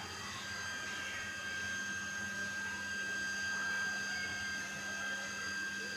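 A running machine's steady hum with several constant high-pitched whining tones.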